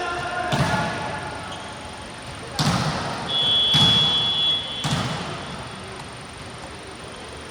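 A volleyball struck in play, four sharp hits over about five seconds. In the middle a shrill referee's whistle is held for about a second and a half.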